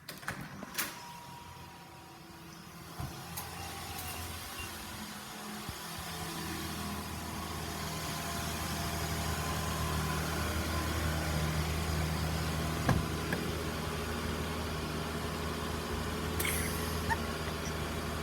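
Car engine running steadily, growing louder a few seconds in and then holding, with a few short clicks.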